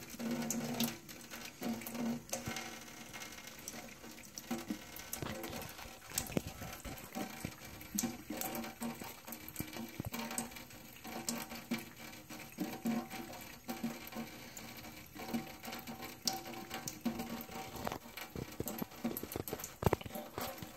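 Thin trickle of water from a kitchen faucet pattering into a stainless steel sink, with a cat lapping at the stream: a steady run of small irregular ticks and drips.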